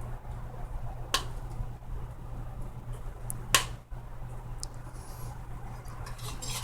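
Two sharp clicks, about a second in and again about three and a half seconds in, with a fainter tick later, over a steady low hum.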